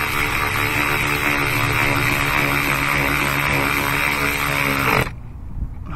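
Milwaukee cordless electric ratchet running steadily as it drives a throttle-body mounting bolt down. Its motor slows just before it cuts off suddenly about five seconds in, as the bolt snugs down.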